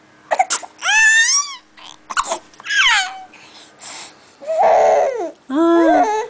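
Baby fussing while being spoon-fed: about six short, high-pitched squeals and whiny cries that slide up and down in pitch, with a rougher, grizzly cry about three quarters of the way through.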